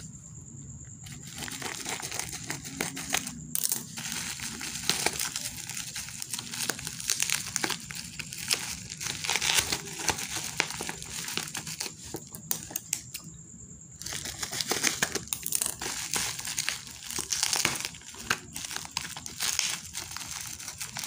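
Bubble wrap and plastic packaging crinkling and crackling as it is cut open and pulled apart by hand, a dense run of crackles with a short lull a little past the middle.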